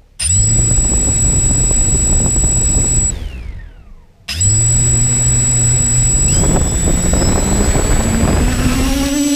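Quadcopter's electric motors and propellers spinning up right at the camera with a loud whine. They cut out about three seconds in and wind down with a falling whine, start again about a second later, and rise in pitch as the throttle comes up toward takeoff near the end.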